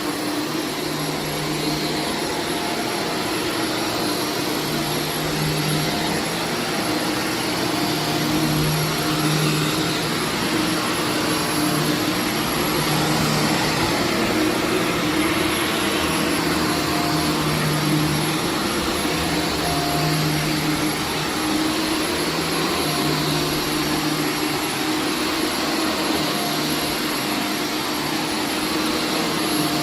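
Carpet-cleaning extractor running with steady suction noise and a hum that swells and fades every second or two. It is pulling leftover dirt out of a carpet that had already been cleaned and vacuumed.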